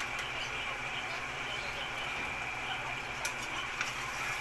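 Pan of whole eels with black beans and chilies cooking on the stove: a steady hiss over a faint low hum, with a couple of light clicks near the end.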